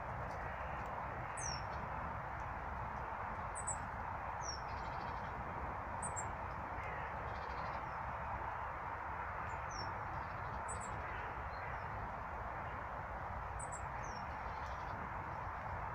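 A small songbird calling at feeders: thin, very high chirps repeated every two to three seconds, each followed by a short falling note. Under them runs a steady even background rush.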